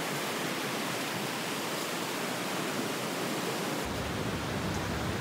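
Ocean surf breaking and washing over beach rocks, a steady hiss of rushing water; a deeper rumble joins about four seconds in.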